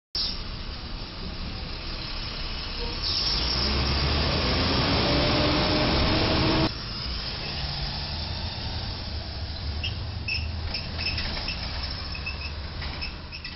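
Street traffic noise, with a box truck's engine speeding up as it pulls away, its pitch rising for a few seconds before the sound cuts off abruptly. A quieter steady traffic hum follows, with faint high chirps.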